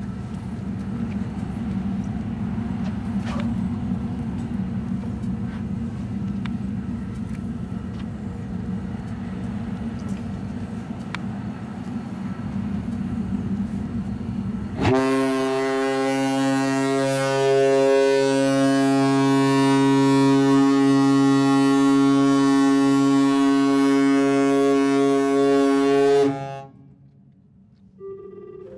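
A cruise ship's whistle sounds one long, steady, deep blast about halfway through, lasting roughly eleven seconds and cutting off abruptly near the end. Before it there is only a steady low rumble on deck.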